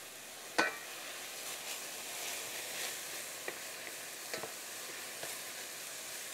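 Sliced onions sizzling softly in oil in a stainless steel sauté pan as they caramelize, stirred with a wooden spatula that taps the pan now and then. A sharp metallic clink from the pan lid rings out about half a second in.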